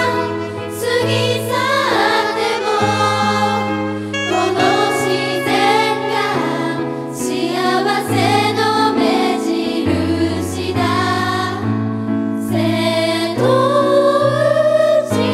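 A female J-pop idol group singing together live into microphones, many voices in unison over instrumental accompaniment with a steady bass line.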